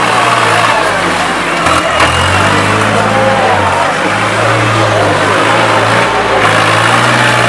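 Vintage tractor engine running hard under load as the tractor drives a muddy race course, with a brief dip in its note about two seconds in.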